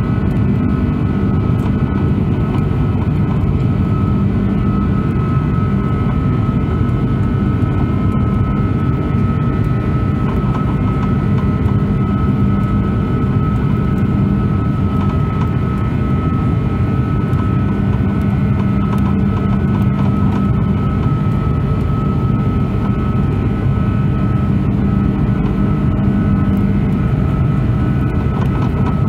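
Engine noise from an Airbus A340-600's Rolls-Royce Trent 556 turbofans at climb power, heard inside the cabin beside the wing: a loud, steady low rumble with a high whine held at one pitch.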